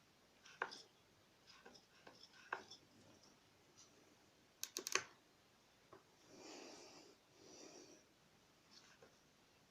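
Fox CTD Evolution shock knocking as it is worked: scattered sharp clicks and knocks, with a quick cluster of four about five seconds in, then two soft rushing swells. The knock is the compression-mode control rod rattling in the damper.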